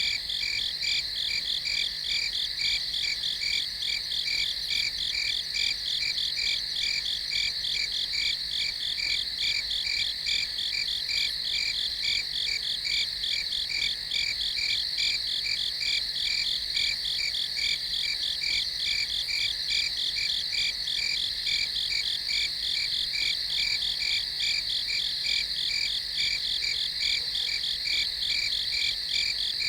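Night chorus of crickets chirping: a steady, high-pitched trill with a fast, even pulse that does not change.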